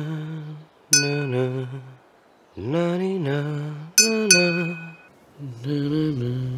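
A spoon tapping an empty drinking glass: one ringing clink about a second in, then two quick clinks about four seconds in, the ring lingering briefly. Between and under them a man hums low, held tones in phrases of about a second each.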